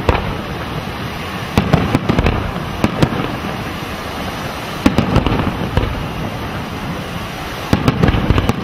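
Fireworks display: aerial shells bursting in several volleys of sharp bangs a second or two apart, over a steady background of noise.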